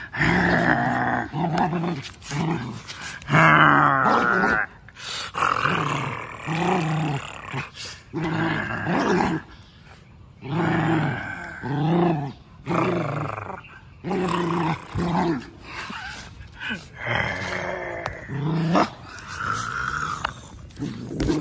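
Golden retriever puppy growling in repeated bouts, each about a second long, as it bites and tugs at its leash.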